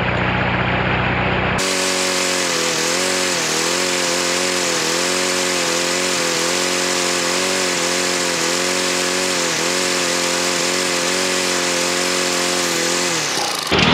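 Walk-behind lawnmower's small four-stroke engine running fast, newly restarted after its rusty carburetor was cleaned to cure a fuel delivery problem. Its pitch dips briefly about once a second. The sound changes abruptly about a second and a half in and again at the very end.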